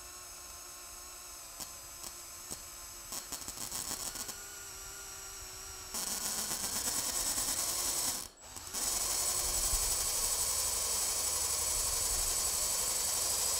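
Power drill boring into the steel head of a self-tapping Phillips screw, drilling the pilot hole for a screw extractor. It runs quietly with a few ticks at first, gets louder about six seconds in, stops briefly a couple of seconds later, then carries on steadily.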